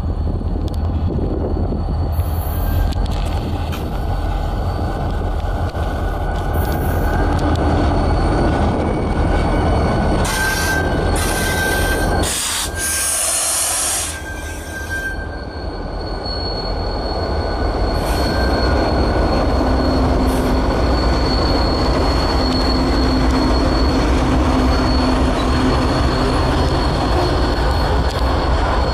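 Freight train passing close by: diesel locomotives running with a heavy steady rumble, then wagons rolling over the rails. A thin high steady wheel squeal sets in a little past halfway and holds, and a brief high hiss comes just before the middle.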